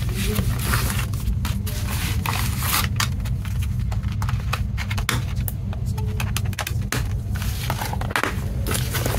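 Hands handling a clear plastic CD case: many short clicks, taps and rustles as the disc is pressed off its centre hub and the case is picked up and moved, over a steady low hum.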